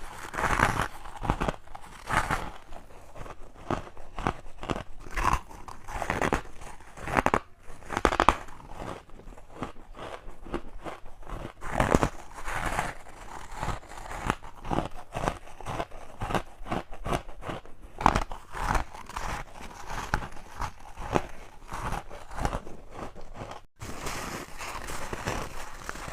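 Close-up crunching bites into hard ice, one irregular crunch after another. The sound drops out for an instant near the end.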